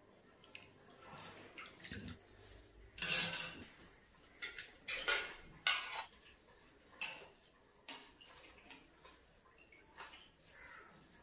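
Metal spoons clinking and scraping against stainless steel plates, a series of sharp knocks with short ringing, the loudest about three seconds in.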